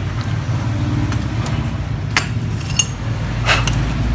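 Steady low background hum with three sharp clicks, about half a second to a second apart, in the second half: small metal parts of a photocopier magnetic roller being handled.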